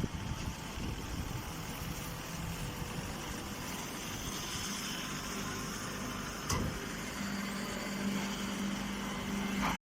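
Engine of hay-baling machinery running steadily, with a single knock about six and a half seconds in and a steady hum joining about a second later; the sound cuts off abruptly just before the end.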